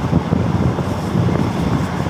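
Steady running noise of a moving passenger train, heard from inside the carriage, with wind on the microphone.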